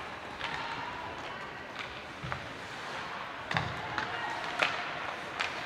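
Ice hockey play on a rink: a run of sharp clacks of sticks and puck, about seven in all, the loudest a little past four and a half seconds in, with a dull thud about three and a half seconds in, over steady rink noise and faint distant voices.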